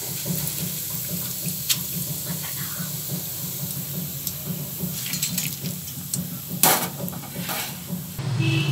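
Hot oil hissing and sizzling in a kadai while fried roasted gram is scooped out with a metal skimmer, over a steady low hum. A few sharp metal clatters, the loudest about two-thirds of the way through.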